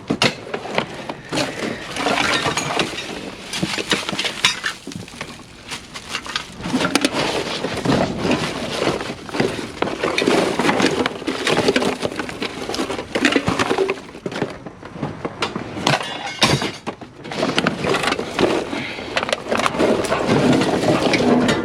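Scrap being rummaged through and tossed about in a metal dumpster: an irregular clatter of knocks, clinks and scrapes from metal and plastic pieces.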